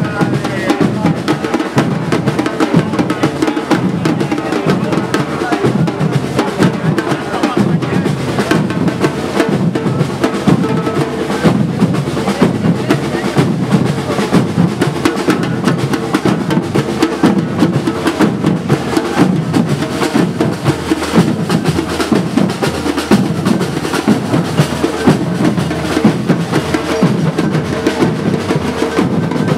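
Drums beating continuously, a busy rolling beat of snare-like and bass-drum strokes with no pause.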